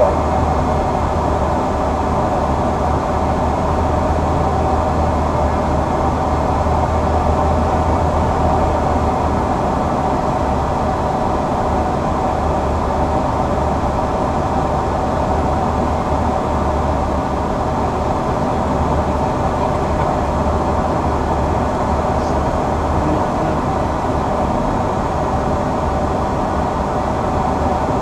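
Steady rushing of air and engine hum on the flight deck of an Embraer 175 airliner in flight, with a low, even drone underneath.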